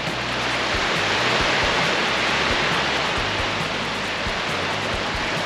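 Small waves washing up onto a sandy beach: a steady rushing noise that swells slightly between about one and three seconds in.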